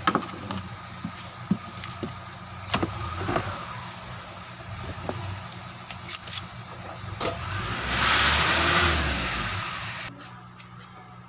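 A steady low hum with scattered small clicks, then about seven seconds in a motor vehicle's noise swells up loud and dies away over about three seconds.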